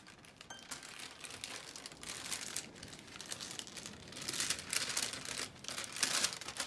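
Thin translucent paper wrapping crinkling and rustling as a parcel is unwrapped by hand, getting louder about four seconds in.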